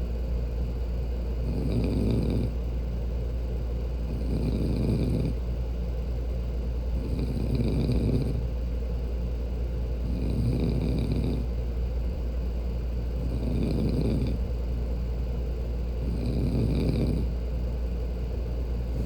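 A woman snoring, one rasping breath about every three seconds, six or seven in all, over a steady low hum.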